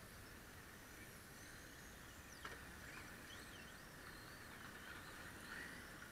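Faint whine of radio-controlled drift cars' electric motors, rising and falling in pitch as the cars speed up and slow down, over a steady faint hiss, with a single click about two and a half seconds in.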